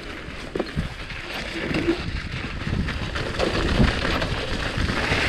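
Mountain bike running downhill over a wet, muddy, snow-dusted dirt trail: tyre rush with knocks and rattles from the bike over bumps, and wind on the microphone, growing louder as speed picks up.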